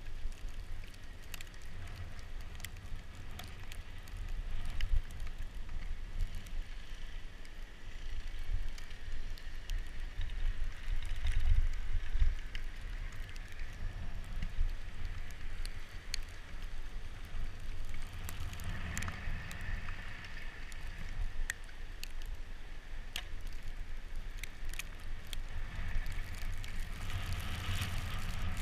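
Bicycle riding over a snow-covered road, heard from a camera mounted on the bike: a steady, uneven low rumble with scattered clicks and rattles, loudest about halfway through.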